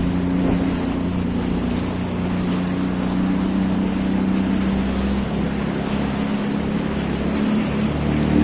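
Jet ski engine running steadily under way, with water and wind noise; the engine's pitch steps up near the end.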